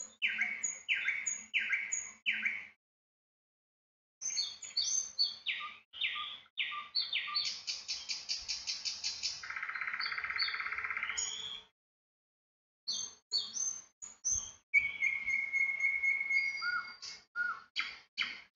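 Small birds chirping and trilling, several calls overlapping, with a fast buzzy trill near the middle and a held steady note later on. The sound cuts out abruptly twice and starts again after a second or so.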